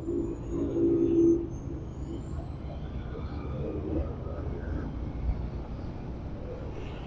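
A vehicle's engine hum passes, loudest about a second in, over a steady low traffic rumble.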